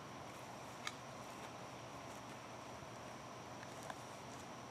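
Quiet woodland ambience with a steady high-pitched insect drone. A faint click comes about a second in, and two fainter ticks come near the end.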